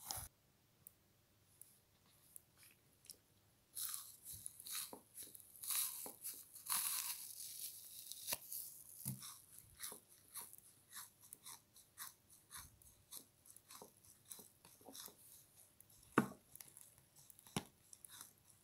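A frozen sponge being squeezed and crushed by fingers, its ice crunching and crackling. A few faint clicks come first. After about four seconds there are dense crunches, then a long run of sharp single crackles, the loudest about sixteen seconds in.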